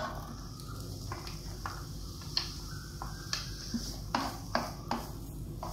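Chopped onion being scraped from a glass bowl into a non-stick frying pan with a knife, then stirred with a spatula: irregular light scrapes and taps against the pan and bowl.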